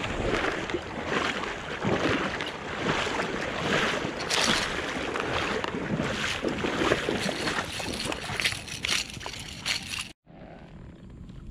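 Water splashing and sloshing in the shallows at the lakeshore as a hooked largemouth bass is reeled in; the sound cuts off abruptly about ten seconds in.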